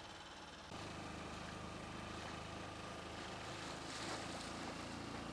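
Motorboat engine running steadily under way, with water rushing past the hull. Less than a second in, the engine gets louder and then holds a steady note.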